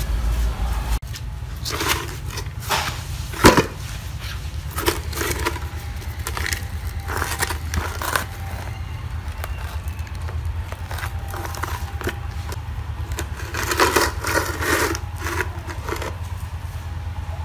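Old concrete-crusted mixer wheels being moved about on a concrete floor: scattered knocks and scrapes, one sharp knock about three and a half seconds in and a cluster of clatter near the end, over a steady low hum.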